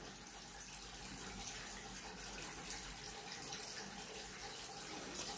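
Faint steady scratching hiss of a small bristle brush scrubbing inside the holes of a stainless steel hand-grinder part.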